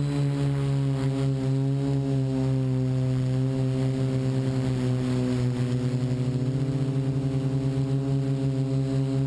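Multirotor's motors and 12-inch propellers humming in flight, heard from the onboard camera: several close tones beating against each other, pulsing rapidly from about halfway through, with the pitch sagging slightly and then stepping up. Low wind rumble underneath.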